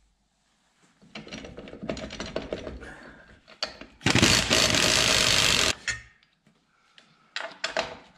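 Metal tools and parts clatter and click, then a power tool runs steadily for under two seconds, starting and stopping abruptly about four seconds in, the loudest sound here; a few more clicks follow near the end.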